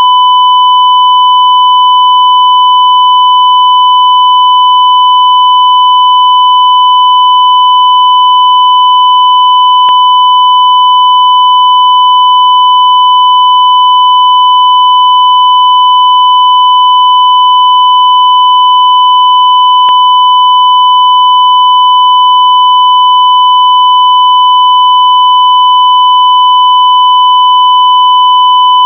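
Censor beep: a single loud, unbroken tone at about 1 kHz, held at one steady pitch, with a faint click about every ten seconds.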